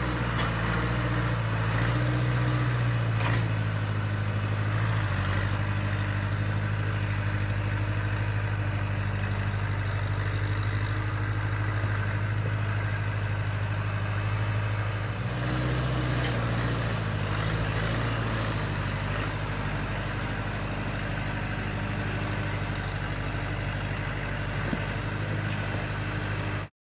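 Engine of a snow-clearing machine running steadily, its note shifting slightly about fifteen seconds in, then cutting off abruptly near the end.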